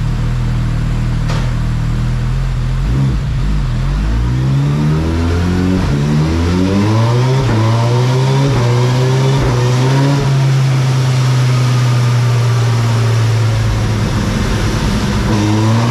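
2022 Suzuki Hayabusa's 1340cc inline-four, fitted with a very small eBay exhaust, making a baseline dyno pull on its stock ECU map: steady running for a few seconds, then the engine note climbing steadily under full throttle for about seven seconds before backing off to a steady run.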